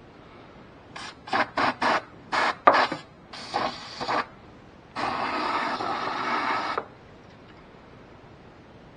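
Aerosol can of brake cleaner spraying: about six quick short bursts, then a longer burst, then one steady spray of nearly two seconds that stops sharply.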